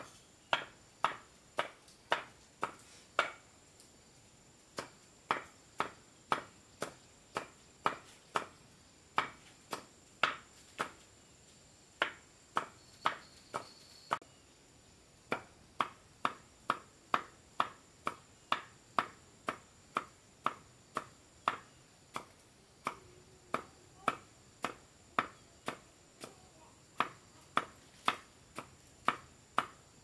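A long series of sharp knocks, about two a second, with brief pauses about four and fourteen seconds in.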